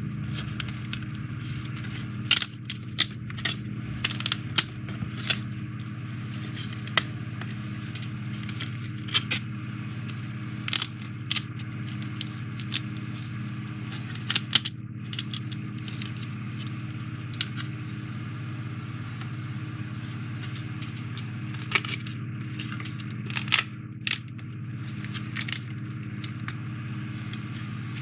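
3D puzzle pieces being popped out of a die-cut card sheet by hand, giving irregular sharp clicks and snaps. A steady low hum runs underneath.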